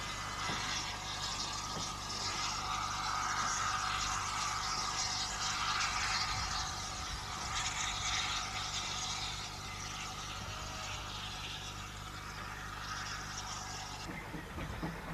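Andrew Barclay industrial steam locomotive chuffing as it works away up the line with a brake van. A continuous hissing exhaust sound that swells over the first few seconds and eases off later, with a steady low hum underneath.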